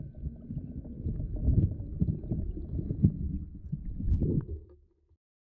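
Muffled underwater rumble with irregular knocks, picked up by a camera submerged in a stream as a Traxxas TRX4 RC crawler drives over the rocks beside it. The sound cuts off to silence near the end.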